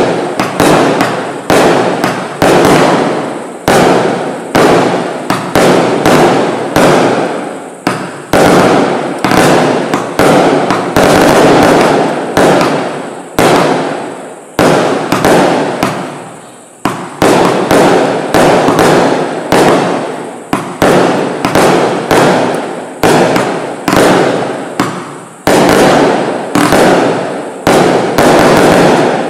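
Bright Star Xtreme 'Ravaging Torment' 86-shot compound barrage firework cake firing: a rapid string of tube launches and aerial bursts, roughly two a second. There is a short lull about halfway through before the shots resume.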